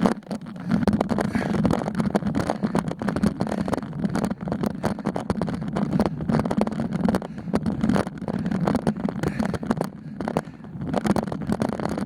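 Steady wind and road rumble on a camera carried on a road bicycle during a climb, with many small knocks and rattles from the bike and the mount.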